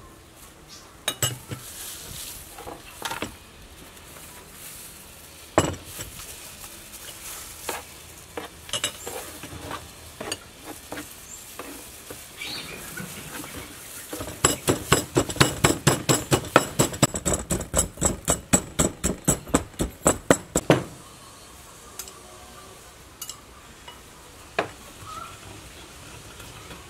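Scattered clinks and taps of a spoon and bowl, then a wooden pestle pounding in a terracotta mortar, a quick even run of about four to five strikes a second for some six seconds, while pounding ingredients for papaya salad; a few lighter taps follow.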